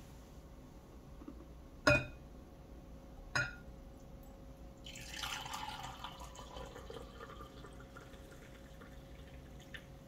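Two sharp ringing clinks, then coffee poured from a French press into a ceramic mug for about two seconds, tapering off to a light trickle.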